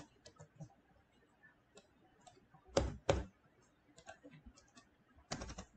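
Computer keyboard keys and mouse buttons clicking while code is edited: a few scattered light taps, two louder clicks about three seconds in, and a quick run of clicks near the end.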